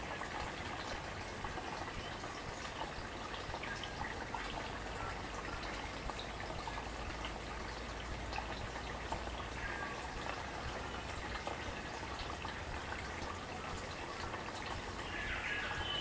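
Small forest stream babbling and trickling over stones, with a few brief bird calls, the clearest of them near the end.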